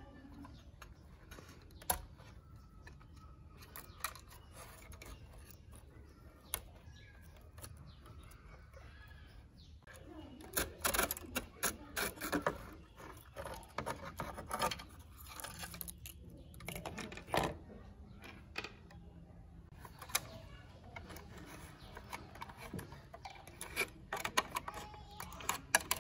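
Scattered clicks and knocks of plastic casing and parts being handled as a cassette radio is taken apart and its circuit board lifted out. The handling comes as single sharp clicks, then a busy run of clatter from about ten to fifteen seconds in, with more clicks near the end.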